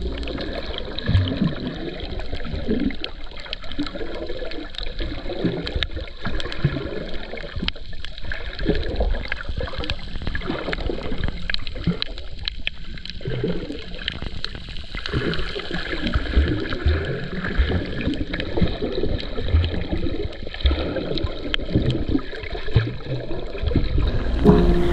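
Underwater sound picked up by a camera held below the surface while snorkelling: muffled water movement and gurgling, with irregular faint crackles.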